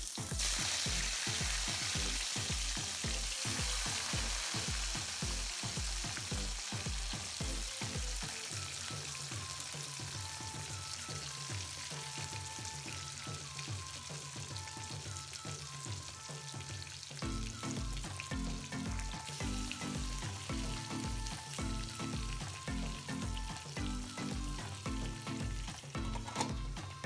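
Katla fish head pieces sizzling as they go into hot mustard oil in a wok, loudest in the first few seconds, then easing into a steady frying sizzle. A background music track with a steady beat plays underneath.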